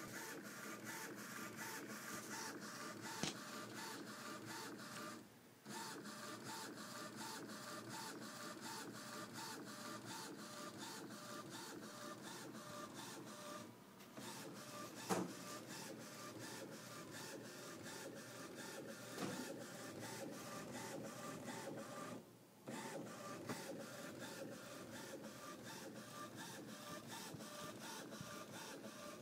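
Epson Stylus S22 inkjet, converted into a homemade direct-to-garment printer, printing: the print-head carriage shuttles back and forth with a rhythmic whirring and ticking, about two passes a second. Brief pauses come about every eight seconds.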